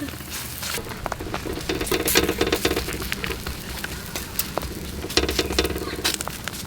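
Bolani, Afghan stuffed flatbread, frying in a pan, sizzling steadily with many small crackles.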